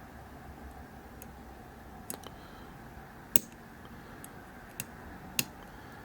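About five small, sharp clicks of a lock pick working the pin stacks inside a five-pin Vachette V5 euro cylinder, scattered through the middle and latter part, the loudest about three seconds in.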